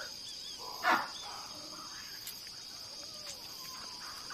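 A baboon gives one short, sharp alarm bark about a second in, over a steady high drone of night insects.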